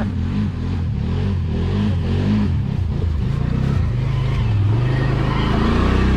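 ATV engine running and revving, its pitch rising and falling, with a stronger rev about three to five seconds in.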